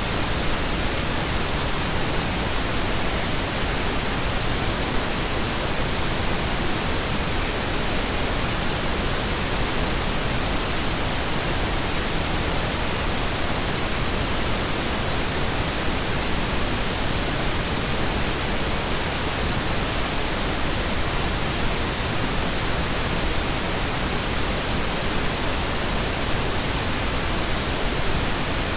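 Steady pink noise: an even, unchanging hiss spread across all frequencies, generated for sleep masking.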